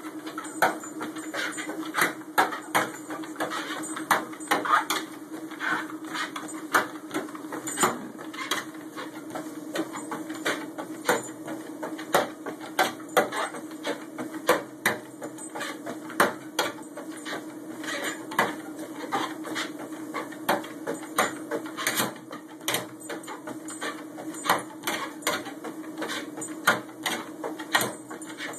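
Motorized treadmill running with a steady hum. A pit bull puppy's paws and claws patter on the moving belt in irregular sharp clicks, a few a second.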